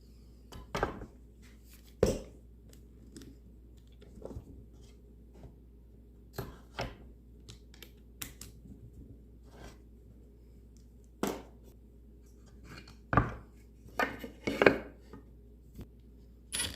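Scattered clicks, taps and knocks of tools and wood being handled on a workbench, the loudest about two seconds in and a cluster near the end, over a faint steady low hum.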